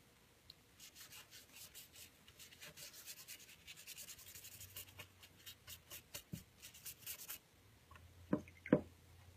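Paintbrush scrubbed over paper coloured with watercolour pencils, a fast run of short rubbing strokes, then two short knocks near the end, the second the loudest.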